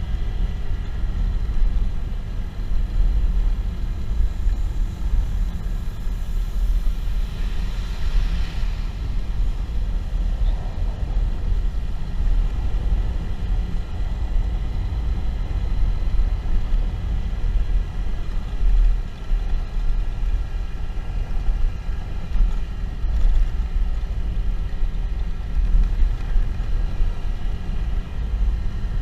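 Motorcycle ride: a steady low rumble of engine and wind on the camera microphone, with a short swell of rushing hiss about a quarter of the way in.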